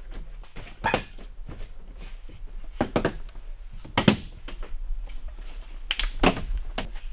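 Four hollow thunks and knocks from work on a car's front door as its interior trim panel is handled and fitted back on, the third one the loudest.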